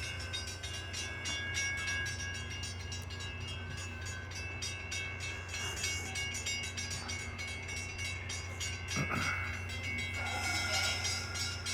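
Metra diesel commuter train running steadily at the station. It gives a constant low hum with thin high-pitched tones over it and a brief sweep about nine seconds in.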